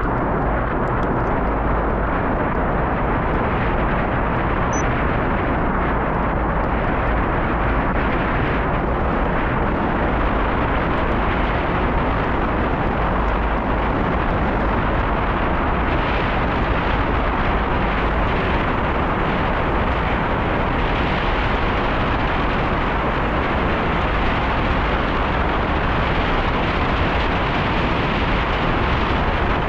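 Wind buffeting the microphone while cycling: a loud, steady rushing with a deep rumble underneath.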